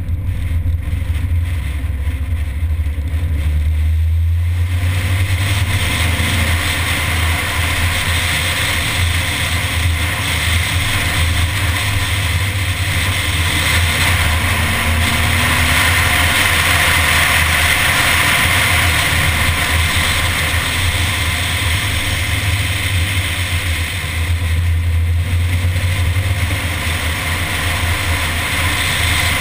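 Mini being driven at speed on a winding road, with engine, tyre and wind noise mixing into a steady rush. It grows louder about four seconds in and eases off briefly near the end.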